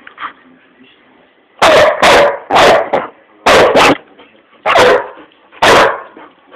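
Old English Sheepdog barking in an excited fit: seven loud, sharp barks in quick, uneven succession, starting about a second and a half in.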